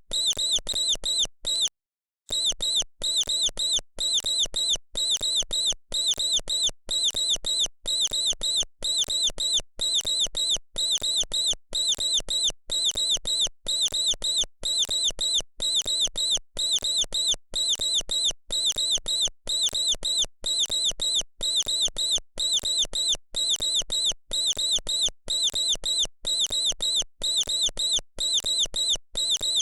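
Mouse squeaking: a steady string of short, high-pitched squeaks, several a second, with a brief pause about two seconds in.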